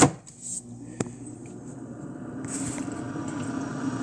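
Cosori air fryer: a sharp clunk, a single click about a second later, then its fan starting up after about two and a half seconds and running with a steady hum.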